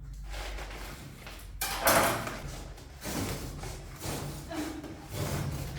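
Bumps and scraping from a fridge and its packaging being handled during unboxing, the loudest knock about two seconds in.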